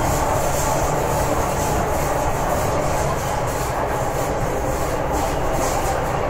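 MTR Tsuen Wan line M-train, an electric multiple unit, running steadily through a tunnel, heard from inside the carriage. The wheel-on-rail and running noise is an even, unbroken sound with no changes.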